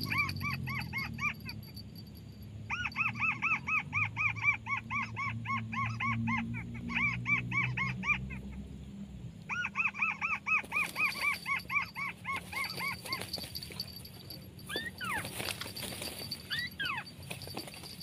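Crake (burung tikusan) calling: bouts of quick, evenly repeated notes, each rising and falling, about four a second, with short gaps between bouts. These give way to a few single, longer down-curving cries in the last few seconds.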